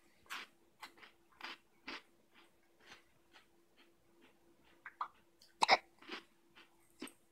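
Hiccups: a dozen or so short, sharp little gulps at irregular intervals, the loudest about two-thirds of the way through.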